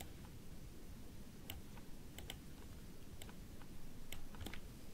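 A computer keyboard and mouse being clicked, about seven separate, quiet clicks spread out over a few seconds, over a faint low background hum.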